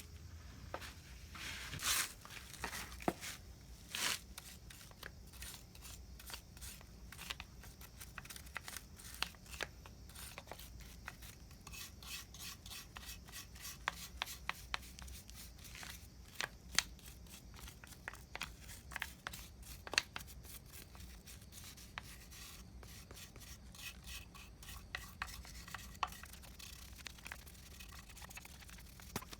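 Scattered sharp clicks and taps with rubbing and scraping from hand tools and parts being handled during disassembly of a transmission, the clicks coming thickest in the middle stretch, over a faint steady low hum.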